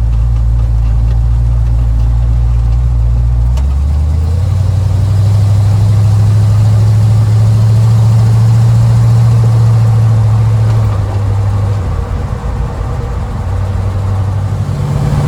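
350 small-block Chevy V8 running through freshly fitted glasspack mufflers. The engine note rises about four seconds in, holds steady, eases back around eleven to twelve seconds, and picks up again near the end.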